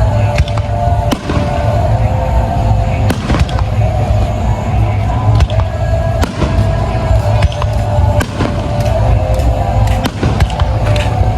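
Aerial fireworks exploding in an irregular series of sharp bangs over a continuous low rumble, with music playing along throughout.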